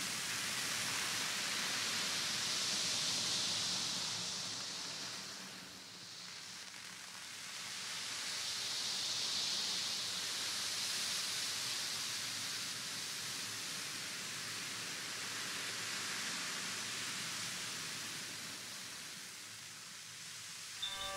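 Ocean drum: beads rolling across the drumhead in slow swells of hiss that rise and fall about every six or seven seconds, like surf. Koshi chimes start ringing at the very end.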